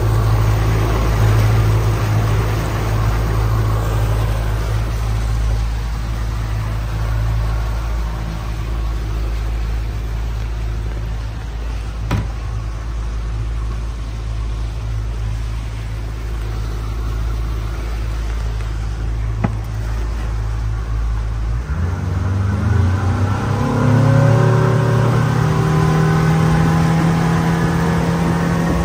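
Mercury outboard motor running steadily as the boat moves through the water, a low, even hum. Late on, the engine note changes and climbs in pitch as it speeds up.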